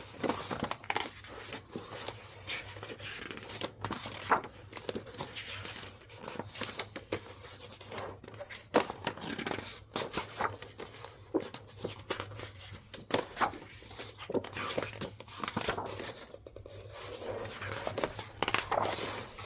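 Packaging being handled and unwrapped: repeated crinkling and tearing rustles with scattered sharp clicks and taps.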